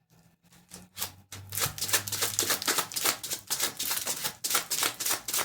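A deck of tarot cards being shuffled by hand: a rapid patter of card flicks, sparse at first and growing dense and louder after about a second.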